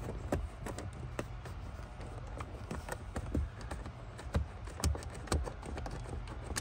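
Small ratchet wrench clicking in short, irregular ticks as a 10 mm bolt is loosened, over a steady low hum.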